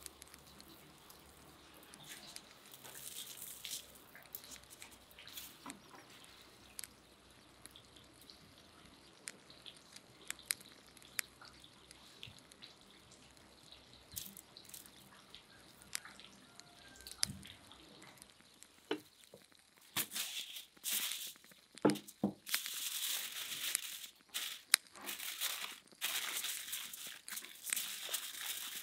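Aluminium foil crinkling and crumpling in loud irregular bursts as it is folded and wrapped around a parcel of potatoes, starting about two thirds of the way in. Before that there are only soft scattered ticks and taps from handling the food on the foil.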